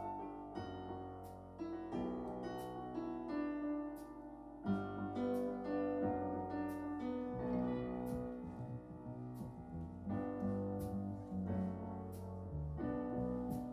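Live band playing an instrumental passage led by a stage keyboard's piano chords, with a light percussive tick keeping time about every two-thirds of a second.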